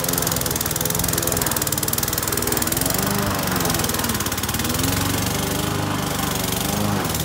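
Victa petrol rotary lawn mower running under load as it cuts thick, overgrown grass. The engine note dips briefly about three to four seconds in, then recovers.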